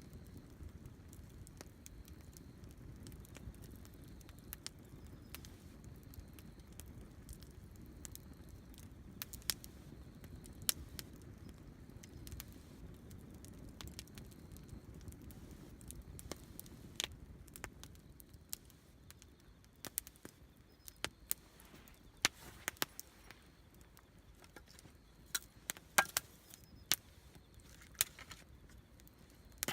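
Wood campfire crackling, with sharp pops over a low rumble of burning. The low rumble fades about halfway through, and the pops come more often and louder in the second half.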